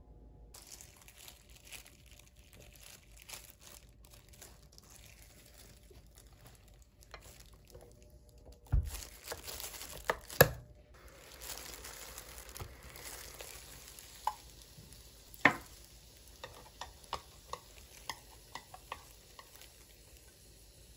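Handling an electric waffle maker: a few knocks and a sharp clack as its lid is pressed shut, a faint sizzle of frozen dumplings on the hot plates, then a string of light clicks from chopsticks against the grill plates.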